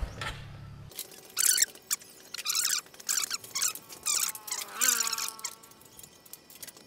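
A small motorcycle engine idling cuts off about a second in. It is followed by a run of short, sharp metallic scraping and ratcheting bursts with squeaks from hand tools working on the bike.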